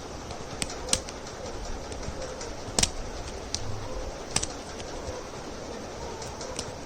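Plastic Rubik's cube pieces clicking as they are forced back into the cube, a few sharp separate clicks over a steady background hiss.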